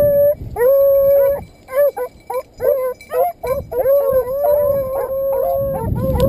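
Beagles baying on a rabbit hunt: long drawn-out bawl notes broken by a run of short choppy barks in the middle.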